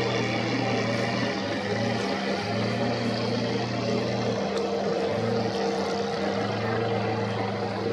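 Engines of motorised long racing boats running hard in a steady drone, the lowest hum dropping out and coming back several times.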